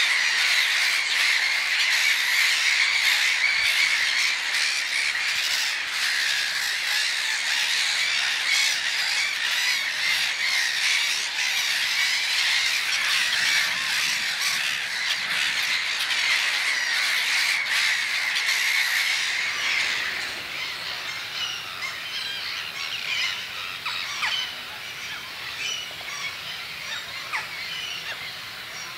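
A large flock of birds calling and squawking together in a dense chorus. About two-thirds of the way through the chorus thins out to scattered separate calls.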